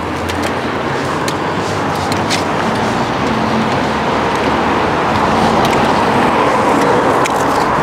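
Steady road traffic noise, an even hiss that swells a little in the second half, with a few faint clicks.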